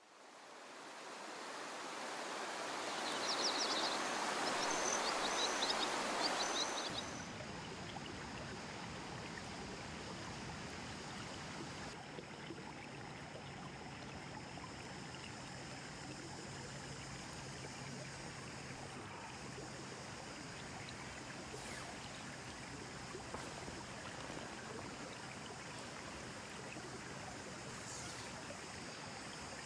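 River water flowing steadily. For the first seven seconds the rush is louder and a few short high chirps come through; then it cuts suddenly to a quieter, even flow.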